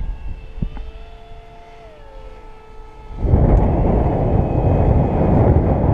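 Faint whine of a model F-15 jet in flight, one tone falling in pitch about two seconds in as it passes; from about three seconds in, loud wind buffeting the microphone.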